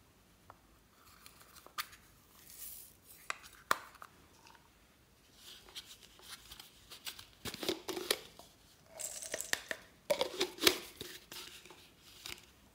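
Hands handling and opening small plastic novelty cases: a few sharp plastic clicks, then denser clicking, scraping and rustling of the plastic parts over the second half.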